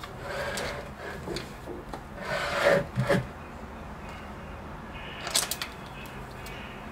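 Hands handling things in a wooden box: tissue paper rustling and a leather notebook being rubbed and moved. The loudest moment is a rustle with a soft knock between two and three seconds in, and there are a few quick light clicks about five seconds in.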